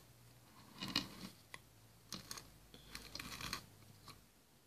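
Faint scratchy rustles and light taps as baking soda is tipped from a small plastic cup into a plastic water bottle, coming in short clusters about a second in, two seconds in and around three seconds in.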